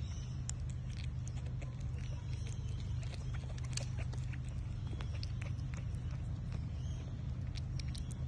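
Tasmanian devil joey suckling from a bottle teat: irregular small wet clicks and smacks from its mouth, over a steady low rumble.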